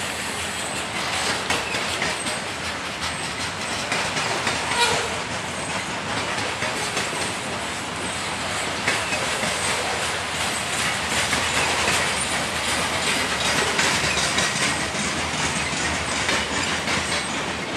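Freight train of covered hopper cars rolling past, a steady rolling noise of steel wheels on rail with frequent clicks of the wheels over rail joints.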